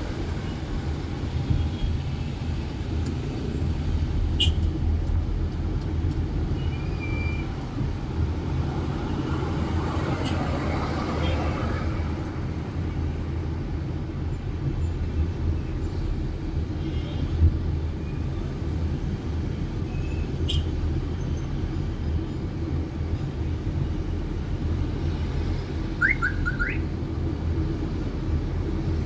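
Steady low rumble of road traffic, with a few brief clicks and some short high chirps about three-quarters of the way through.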